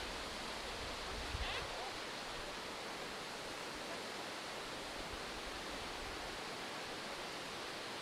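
Steady, even rush of a broad waterfall made of many thin streams of spring water falling from a cliff face.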